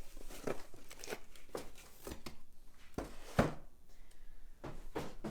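Plastic packaging and small accessory parts of a CPU liquid cooler being handled and unpacked: rustling and crinkling broken up by irregular clicks and knocks, the sharpest knock about three and a half seconds in.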